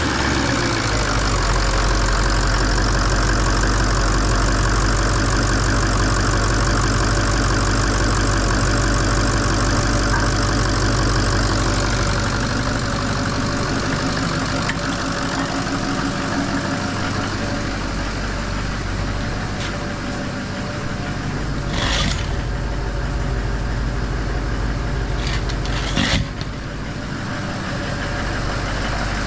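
Ford 6.0 L Power Stroke V8 turbodiesel idling steadily, running again after its heads were refitted with head studs. Twice near the end a sharp clunk cuts through.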